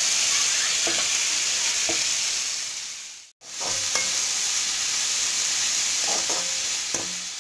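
Chopped tomatoes, onions and green chillies sizzling in hot oil in a pan, stirred with a steel slotted spatula that scrapes the pan now and then. The sizzle cuts out abruptly for a moment about three seconds in, then carries on.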